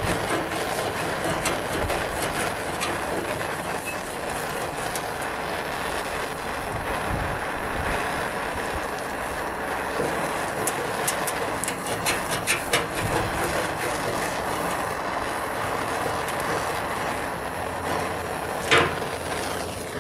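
Handheld propane torch flame hissing steadily against painted sheet steel. A scraper scratches and ticks over the blistered paint around the middle. Near the end comes one sharp metal clank as the tool is set down on the steel lid.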